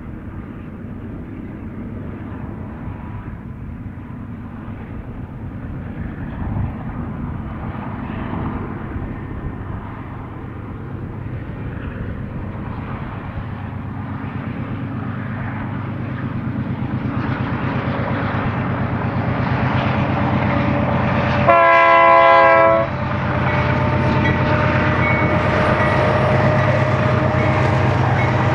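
BNSF 4659's diesel locomotives approaching at the head of a double-stack intermodal train, their rumble growing steadily louder. About three quarters of the way through comes one short blast of the multi-chime air horn, the loudest sound. Then the stack cars roll past with a steady rumble.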